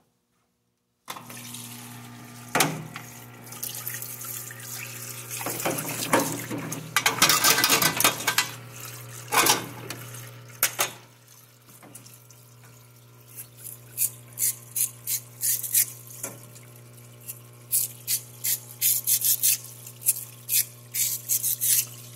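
Parts washer pump switching on about a second in and humming steadily, with the water-based degreaser pouring and splashing as a dirty, carbon-fouled AR-15 bolt carrier is washed under it. In the second half comes a quick run of scrubbing strokes, about two a second.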